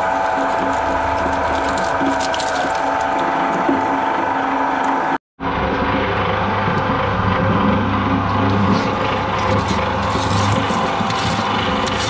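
A twin-shaft shredder's cutter discs turn and grind with a steady motor whine and rapid ratcheting clicks. The sound drops out for an instant about five seconds in, then the machine runs on with a deeper rumble and scattered sharp clicks.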